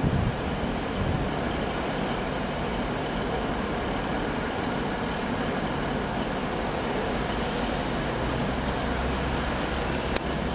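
Train running with a steady rumble, with a couple of sharp clicks near the end.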